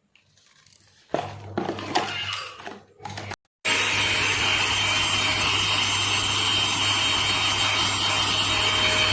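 Small battery-powered vacuum/blower motor running. It runs at a lower level with some rattling about a second in, stops for an instant, then runs steadily and loudly with a high whine.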